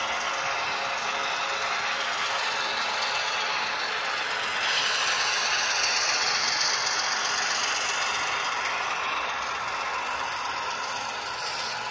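HO scale model trains running on the track: a steady mechanical rattle of wheels on rails and motors, growing louder about a third of the way in as two trains pass close together, then easing toward the end.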